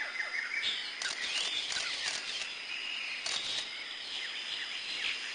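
Outdoor nature ambience of birds and insects chirping over a steady hiss, with scattered short calls and crackles.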